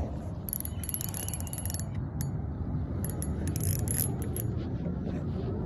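Fishing reel clicking in quick runs of rapid clicks with short pauses between, over a low rumble.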